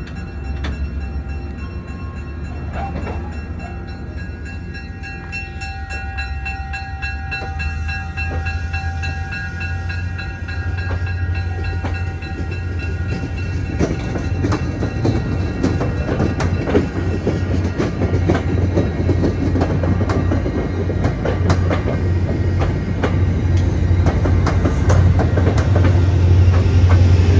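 MBTA commuter rail train pulling out of the station: the diesel locomotive's steady low drone runs throughout, with a few steady high tones in the first half. About halfway through the coaches begin rolling past with a stream of wheel clicks over the rail joints, growing louder as the locomotive draws alongside near the end.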